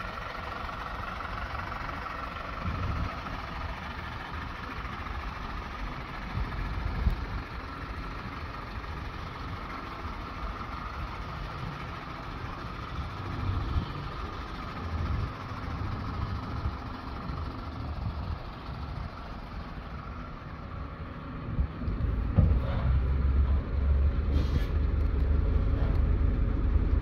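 Steady vehicle-like outdoor background hum with irregular low rumbles, which grow louder in the last few seconds.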